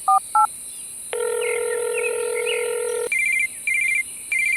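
Telephone call sound effects: the last few keypad dialing beeps, then a steady ringing tone lasting about two seconds, then a phone ringing in short, high repeated trills about every half second.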